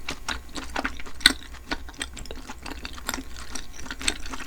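Close-miked eating sounds of spicy beef-tripe tteokbokki being chewed: a rapid, irregular run of wet mouth clicks and smacks, with one sharp click about a second in.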